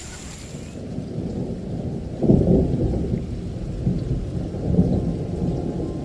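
Thunder rumbling low during a rainstorm, with a sudden loud swell about two seconds in that rolls on.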